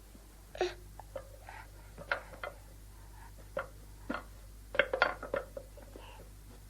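Small hard toys being handled and knocked together: scattered light clicks and clinks, with a quick cluster of louder knocks about five seconds in.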